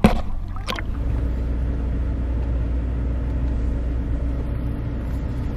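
Pickup truck engine running with a steady low drone. A few brief knocks in the first second.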